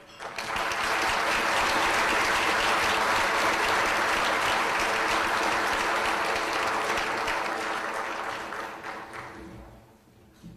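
Audience applauding: steady clapping that starts right away and dies out about nine seconds in.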